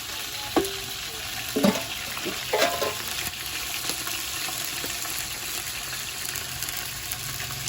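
Food sizzling in a hot cooking pan while being stirred, a steady hiss with three short louder knocks or clatters in the first three seconds.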